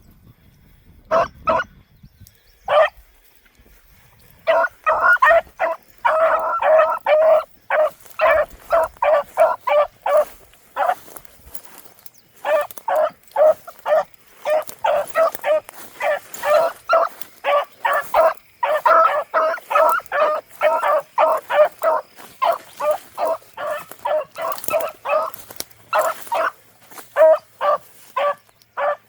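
Eleven-month-old puppies barking: a few single barks at first, then rapid, repeated barking from about four seconds in that keeps going with only brief pauses.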